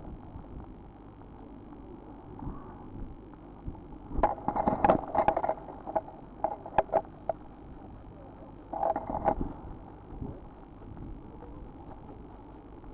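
Well-grown blue tit nestlings begging in a nest box: a rapid, high-pitched chittering starts about four seconds in as a parent enters and runs on continuously. Knocks and scuffling from the adult in the box come in several short clusters over the next five seconds.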